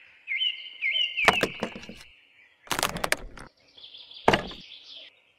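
Small plastic toy picket fence being set down and pressed into place, making clusters of sharp clicks about a second in, near the middle and once more later, with birds chirping high and repeatedly throughout.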